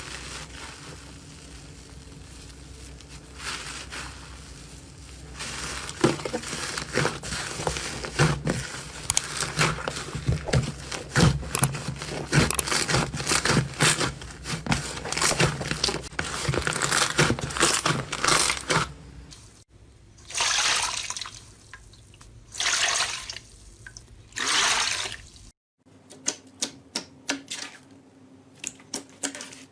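Slime being pressed and poked by hand: rapid sticky clicks and crackling pops, then three longer hissing swells. Near the end it cuts to another slime clip with more separate clicks.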